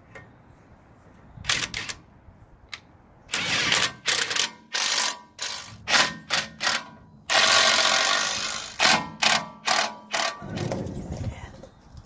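Ratchet wrench clicking in a run of short bursts, running down the bolts that hold a truck's brake backing plate. The longest and loudest run comes about seven seconds in.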